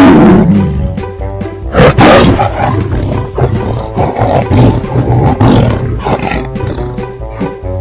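Tiger roaring over background music: loud roars at the start and again about two seconds in, with weaker ones after.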